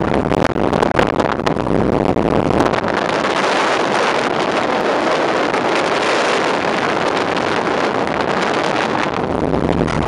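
Steady rush of wind and road noise from a car driving at highway speed, with wind buffeting the microphone.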